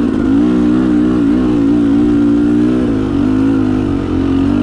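Beta Xtrainer 300 single-cylinder two-stroke dirt bike engine, fitted with an FMF Gnarly pipe, running steadily under light throttle, its pitch wavering up and down a little as the throttle is worked.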